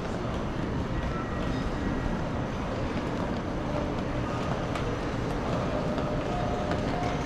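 Steady rumbling din of a busy terminal hall, with wheeled suitcases rolling over a polished stone floor and a few light footstep ticks.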